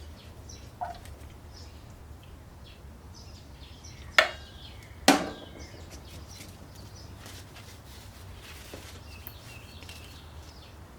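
Two sharp knocks, each with a brief ring, about a second apart, over a low steady hum, with faint bird chirps scattered through.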